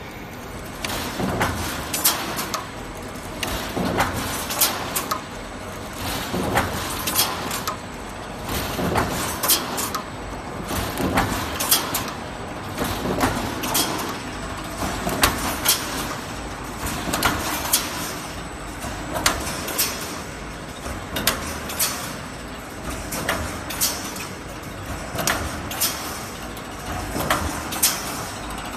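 Automatic wire mesh panel welding machine running in its cycle: sharp metallic clanks about every one to two seconds as the welding head strokes and the mesh advances, over steady machine noise.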